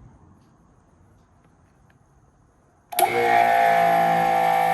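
Bauer 2300 psi brushless electric pressure washer switched on for the first time: its motor and pump start abruptly about three seconds in and run with a steady, loud whine.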